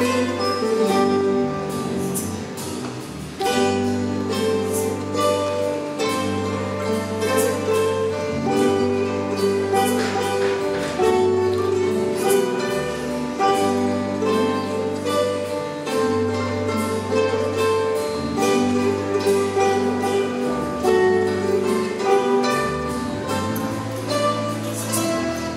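Live ensemble of acoustic guitars with a ten-string viola caipira playing a plucked Brazilian regional piece over a steady bass line, with light drum and cymbal strokes.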